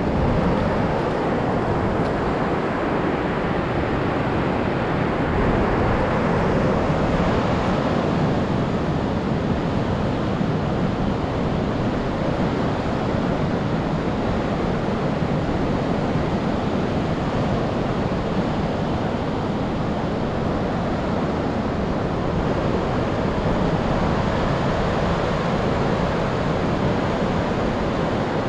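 Steady rush of ocean surf breaking along a long sandy beach, mixed with wind buffeting the microphone.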